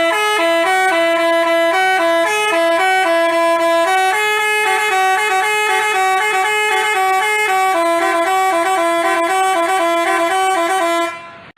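Basuri telolet bus horn playing a tune: a melody of short and held notes sounded in two tones at once, cutting off near the end.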